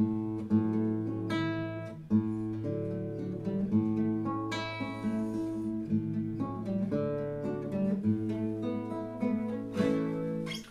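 Acoustic guitar strumming slow chords, a new chord about every second, each left ringing. The playing stops suddenly near the end.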